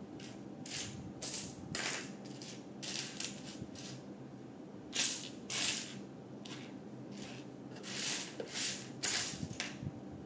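Loose plastic LEGO bricks rattling and clicking as they are handled, in about a dozen irregular short bursts.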